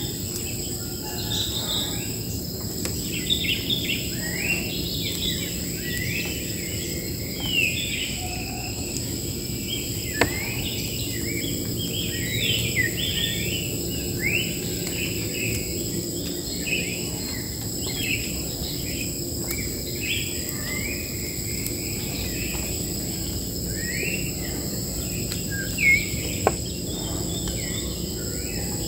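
Wild birds chirping and singing in many short, quick notes that sweep up and down, over a steady high-pitched insect drone. A couple of sharp clicks stand out, one near the middle and two close together near the end.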